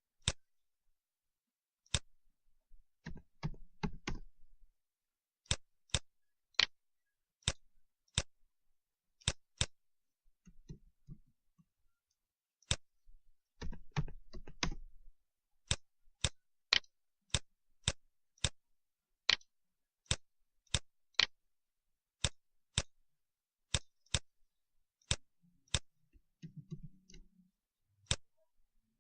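Computer mouse buttons clicking one at a time at an irregular pace, with two short stretches of quicker clicks and faint desk handling.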